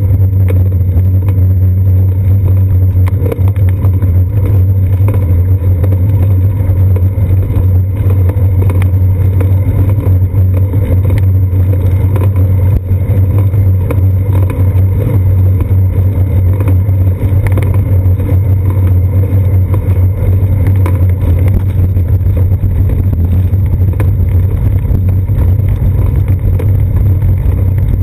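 Steady low rumble of road vibration and wind picked up by a GoPro Hero 2 on a moving bicycle's seat post, with faint scattered ticks from the bike.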